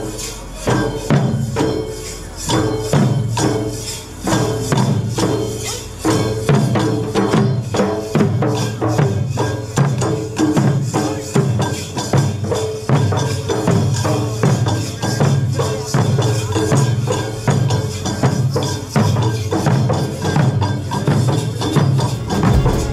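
A folk troupe's large barrel drums (dollu) beaten together in a steady, driving rhythm, with jingling metal percussion over the drumbeats.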